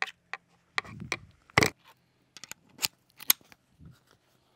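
A series of sharp metal-and-plastic clicks and clacks from a foam cannon and a pressure washer gun's stainless quick-connect fitting being handled and fitted together. There are about eight separate clicks with quiet between them, the loudest about one and a half seconds in.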